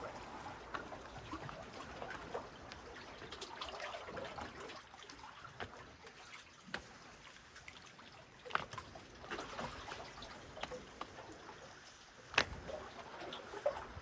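Small lake waves lapping and trickling among the rocks of a stony shore, with scattered sharp clicks and knocks of stone on stone. The loudest click comes near the end.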